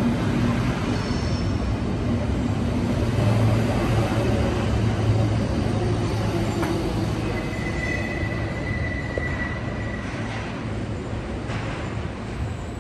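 SBB Stadler KISS double-deck electric train moving slowly along the platform close by: a steady rumble of wheels and running gear with a low electric hum. A thin, high wheel squeal comes in briefly about eight seconds in.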